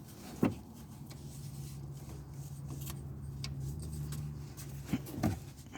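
Hands working a serpentine belt onto the engine's pulleys: a few light knocks and rubbing. A steady low hum runs underneath.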